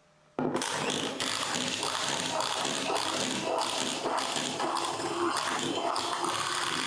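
Electric mixer switched on about half a second in and running steadily, beating milk into the egg, sugar and oil batter.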